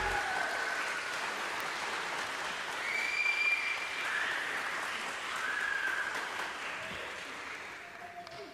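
Audience applause with a few high cheers, dying away near the end.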